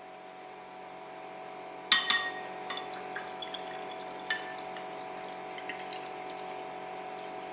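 A drink poured from a bottle into a stemmed wine glass: a sharp glass clink about two seconds in, then light drips and trickling of the pour.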